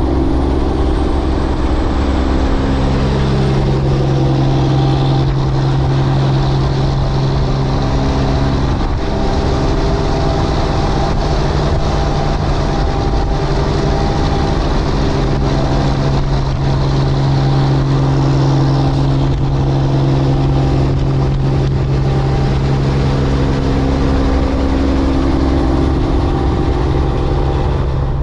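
Car engine with a loud aftermarket exhaust running steadily at a low, even pitch, drifting slightly up and down in pitch a couple of times.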